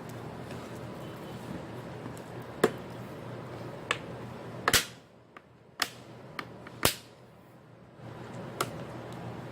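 Sharp clicks and knocks, about seven spread over several seconds, from hands and tools handling an opened laptop under repair. A steady background hum and hiss cuts out for about three seconds in the middle and then comes back.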